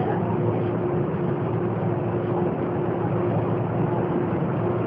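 Volkswagen 17.230 EOD city bus's diesel engine running under way, a steady hum with a faint constant tone.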